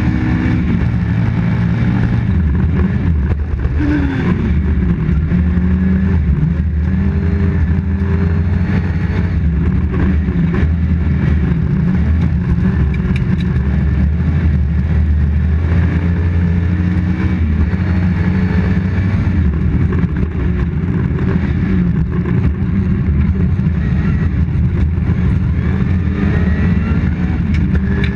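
Toyota Corolla GT rally car's engine heard inside the cabin at stage speed, its pitch rising and falling as the driver works the throttle and gears.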